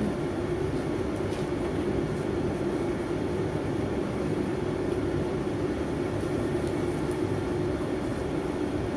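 A steady low drone from a running machine, unbroken and even in level, with faint rustling of the paper cut-outs as they are handled.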